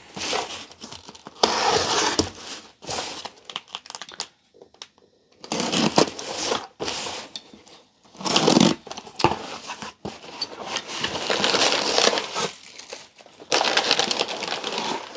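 A shipping package being opened by hand: packing material crinkling and rustling in irregular bursts, with short pauses between them.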